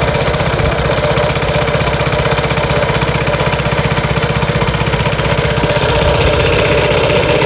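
A small boat engine running steadily with a rapid, even chugging.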